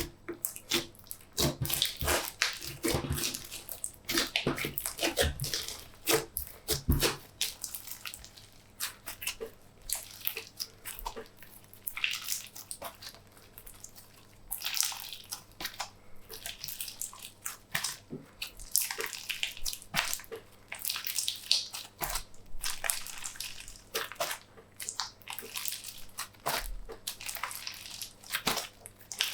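Slime being kneaded and stretched by hand, making wet squelches and quick popping clicks in irregular bursts.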